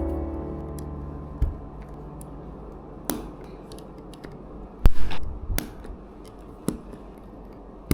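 Plastic Lego bricks clicking as they are handled and pressed together: scattered sharp clicks, the loudest a quick cluster about five seconds in.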